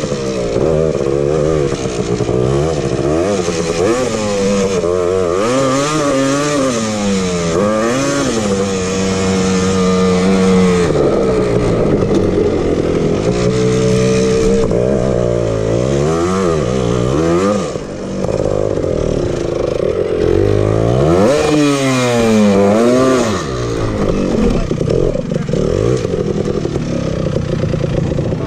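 Honda TRX250R's single-cylinder two-stroke engine revving up and dropping back over and over as it is ridden, with a steadier held pitch for a couple of seconds about eight seconds in.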